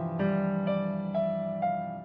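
Background music: a gentle electric-piano melody with a new note about every half second.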